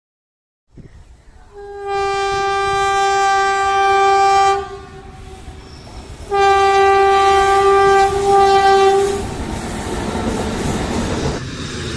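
Train horn sounding two long blasts, each about three seconds, over the running noise of a train that carries on after the second blast.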